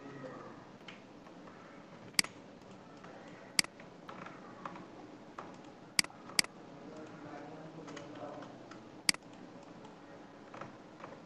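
Computer mouse clicking: five sharp single clicks spread over about nine seconds, two of them close together about six seconds in.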